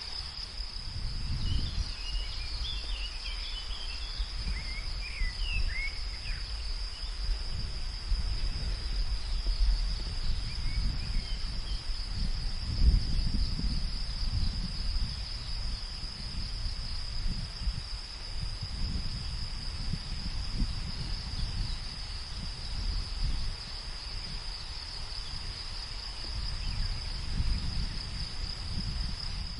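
Steady high-pitched chorus of crickets in a field, over a low wind rumble that comes and goes in gusts. A few brief bird chirps sound about two to six seconds in and again around eleven seconds.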